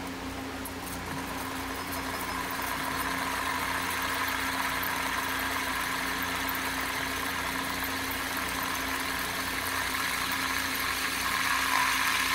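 Light-up fidget spinner whirring on a laboratory magnetic stirrer, which drives it through rare-earth magnets in its arms, over the stirrer's steady hum. The whir grows louder about two seconds in and again near the end as the spinner speeds up.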